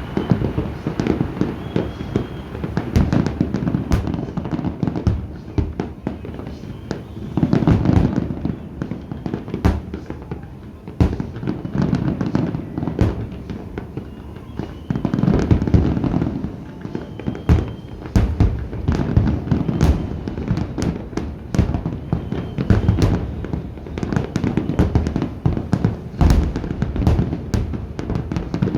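Fireworks display: a continuous barrage of bangs and crackling, with heavier clusters of booms about a quarter of the way in and again around the middle.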